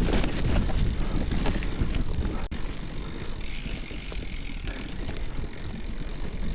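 Shulz Lone Ranger bicycle riding over a muddy, rutted forest track: tyres rumbling and the bike and its bags rattling, with wind buffeting the microphone.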